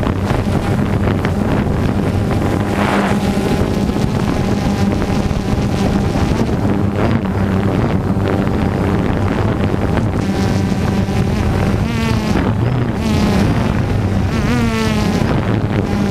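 DJI Phantom 2 quadcopter's four brushless motors and propellers buzzing steadily, heard up close from the camera mounted on the drone, with wind on the microphone. The pitch sweeps briefly twice in the second half as the motors change speed.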